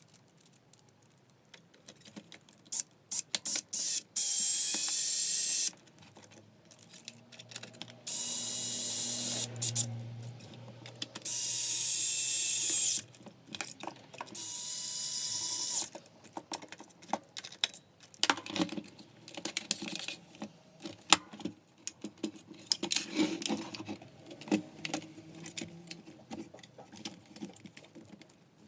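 Cordless electric screwdriver running in several short bursts of a second or two, whining as it drives out screws. Between and after the bursts come small clicks and rattles of parts being handled.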